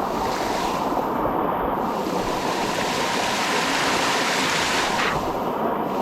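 Water of the Sticky Waterfall cascade rushing steadily over the rocks: a continuous rushing noise with no breaks.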